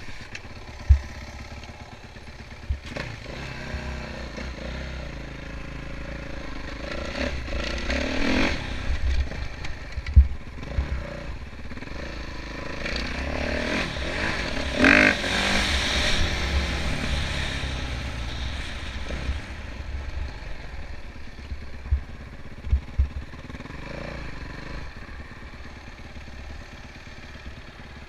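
Kawasaki KX450F motocross bike's single-cylinder four-stroke engine running under its rider, heard from a helmet-mounted camera, the revs rising and falling as it rides over dirt, climbing highest around eight and fifteen seconds in. A few sharp low thumps come through, the loudest about one and ten seconds in.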